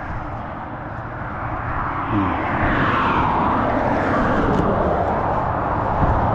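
A vehicle passing on the road: a broad rush of tyre and engine noise that swells about two seconds in and stays loud.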